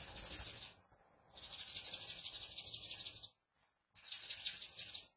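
Plastic toy knife rubbed rapidly back and forth across the skin of a palm, a bright rasping hiss. It comes in three spells separated by short silences.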